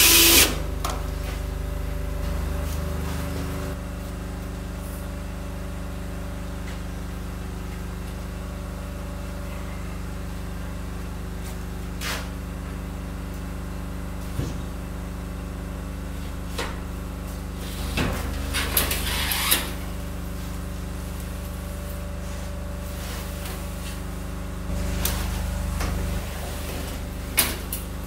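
Sliding window panes knocking and rattling as they are handled and set into their frame tracks: a few single knocks, then a cluster of clattering past the middle and more knocks near the end. Under it runs a steady low machine hum.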